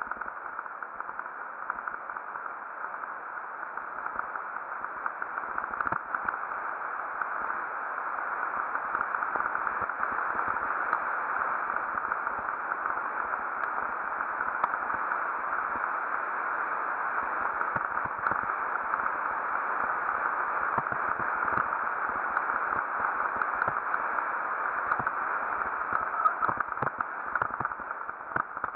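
Steady rushing noise of wind and motion on a helmet-mounted camera during a fast mountain-bike descent on a dirt trail, with many small clicks and rattles from the bike running over the ground. The noise grows louder several seconds in as the speed builds.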